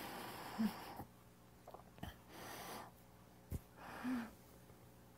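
A man breathing in through the nose in three stages, a soft hiss at the start, another about two seconds in and a third short sip near four seconds: a qigong three-part breath, filling the belly, then the chest, then topping up. Two brief soft throat sounds and a faint click come between the breaths.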